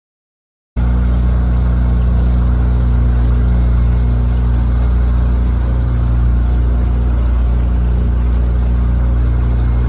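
Small boat's outboard motor running steadily, a loud low hum with a steady hiss over it, starting abruptly just under a second in.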